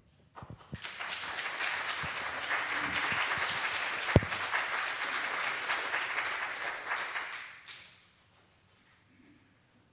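Congregation applauding, building up quickly, then dying away after about seven seconds, with one sharp knock a little past the middle.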